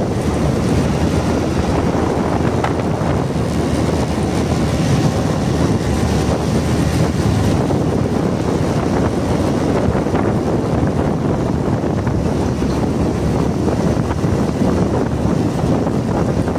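Steady wind rush and road noise of a moving motorcycle, picked up by a phone's microphone.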